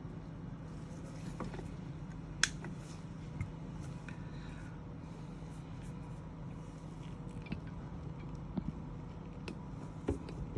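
Steady hum and hiss of a hot air rework station blowing on a phone motherboard during a reflow, with a few sharp clicks and taps, the loudest about two and a half seconds in.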